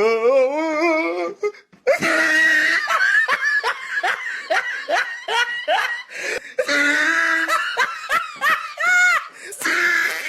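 A person laughing hard in high-pitched, repeated bursts, with a short break about two seconds in.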